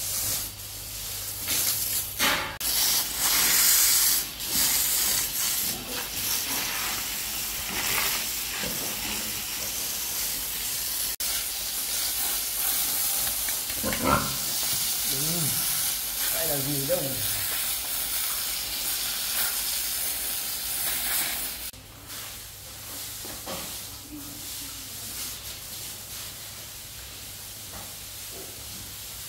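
A steady hissing noise that drops noticeably quieter about three quarters of the way through.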